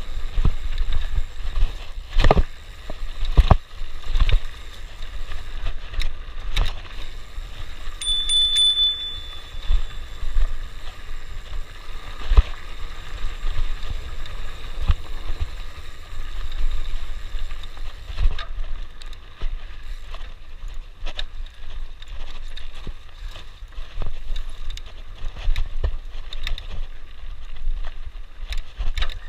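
Mountain bike rolling down a rough dirt singletrack, the bike clattering and knocking over bumps, with wind rumbling on the microphone. A brief high squeal comes about eight seconds in.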